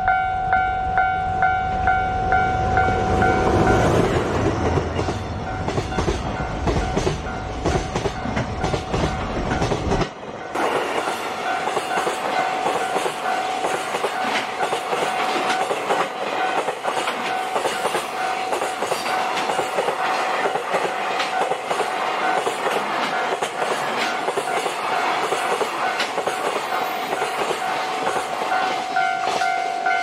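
Level-crossing warning bell ringing in even, repeated dings while a DF200 diesel-electric freight locomotive passes with a heavy low engine rumble. About a third of the way in, the rumble gives way to a long string of container wagons clattering over the rail joints, with the bell fainter beneath them. The bell comes back loud near the end as the last wagons go by.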